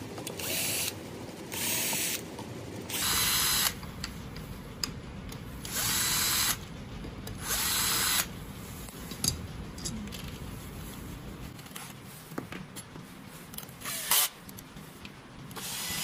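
Cordless drill-driver running in short bursts of about a second, backing screws out of a robot's plastic body shell. There are about five bursts in the first half and one brief one near the end.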